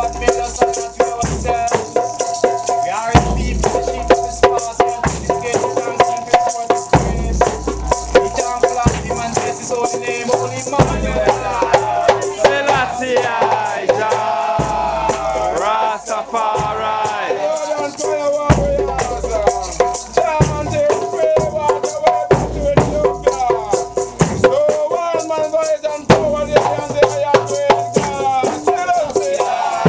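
Group of men chanting a hymn together, shaking hand rattles (maracas) in a fast continuous clatter, with deep drum thumps underneath.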